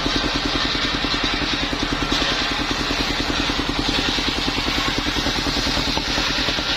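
Engine of a portable circular sawmill running steadily with a rapid, even beat, with a steady high hiss over it.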